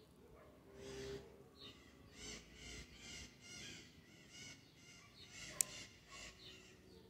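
Birds calling repeatedly in the background, short harsh calls about twice a second. About five and a half seconds in comes one sharp click of scissors snipping a succulent stem, the loudest sound.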